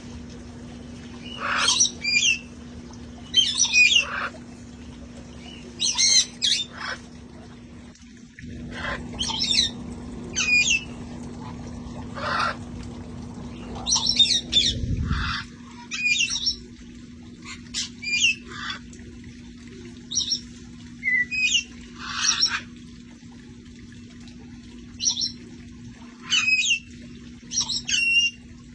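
Parrots squawking and calling in short, loud bursts every second or two, some calls sliding in pitch. A steady low hum runs underneath, and a rushing noise rises about eight seconds in and fades out about halfway through.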